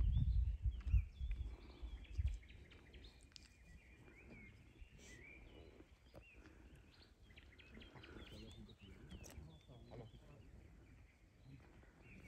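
Small birds chirping and calling, with short gliding notes throughout. A few loud low rumbles on the microphone in the first two seconds or so.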